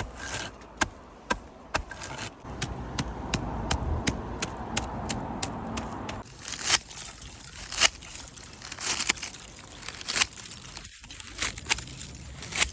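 Thatching work on a straw or reed roof. For about the first half there are sharp taps about twice a second, then irregular rustling, scraping strokes through the thatch.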